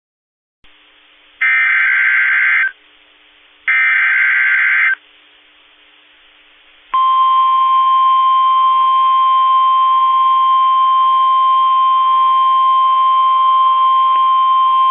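NOAA Weather Radio alert signal. Two raspy data bursts of the SAME digital header come about a second and a half apart, each lasting over a second. About seven seconds in, the steady single-pitch 1050 Hz warning alarm tone starts and holds, signalling that a weather warning, here a severe thunderstorm warning, is about to be read. Faint radio hiss lies underneath.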